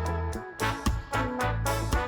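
Upbeat background music with a steady beat, bass line and horn-like lead, in a swing style.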